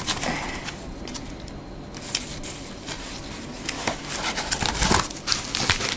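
Packaging handled and unwrapped by hand: rustling and crinkling with many short sharp clicks and taps, sparse about a second in and busier from about two seconds on.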